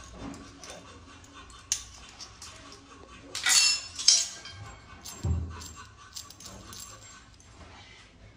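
Brass kitchen utensils being handled: a few metallic clinks and a sharp scrape about halfway through, then a dull thump.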